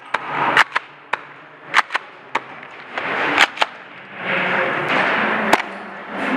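Scattered sharp cracks of airsoft gunfire in an indoor arena, a dozen or so irregular single shots, several in quick pairs, the last a little before the end. A rushing noise swells and fades between them.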